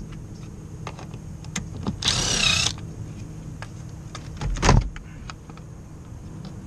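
Cordless screwdriver motor whirring for under a second, its pitch wavering, as it backs out the Phillips screw holding the air filter in place. A loud thump comes a couple of seconds later.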